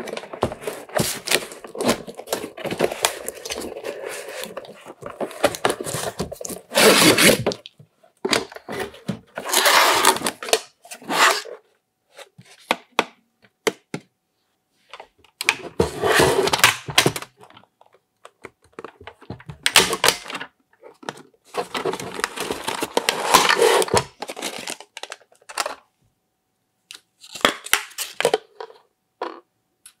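Unboxing a toy coffee maker: cardboard box flaps and packaging scraped and rustled, and hard plastic toy parts knocked and set down on a table. The sounds come in irregular bursts with short silent gaps.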